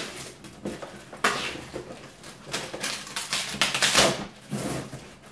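Tape on the top of a cardboard box being slit with a blade and ripped away: a run of irregular scratchy rips and crackles.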